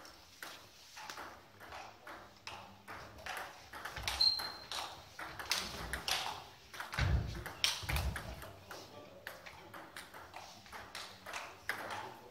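Table tennis ball clicking off the table and bats in quick, uneven succession during play, in a large, echoing sports hall. A short high squeak comes about four seconds in, and two dull thumps come about seven and eight seconds in.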